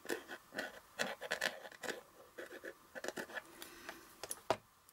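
Liquid glue being squeezed from a plastic squeeze bottle, its nozzle tip drawn over the back of a cardboard panel in short, irregular strokes, with a sharp tap near the end.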